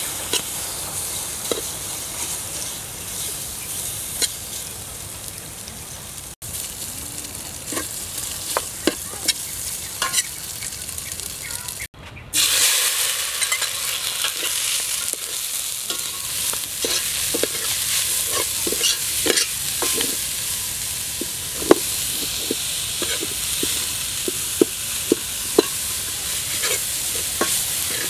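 Green paste frying and sizzling in an aluminium pot while a metal ladle stirs it, scraping and clinking against the pot in short sharp clicks. The sizzle gets clearly louder about twelve seconds in.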